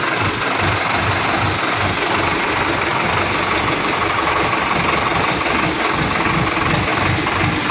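Sonalika Worldtrac 60 RX tractor's diesel engine running steadily at idle.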